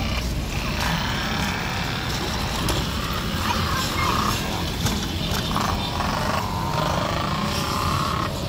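Outdoor town park ambience: a steady rumble of road traffic, with scattered voices and higher tones coming and going.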